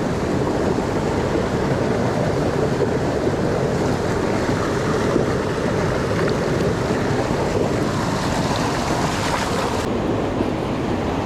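Steady rushing of a river's current flowing over rocks.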